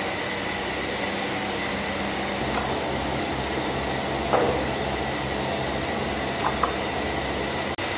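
Steady hum and hiss of running kitchen equipment, with a faint high whine held throughout. A couple of light knocks come midway and again near the end.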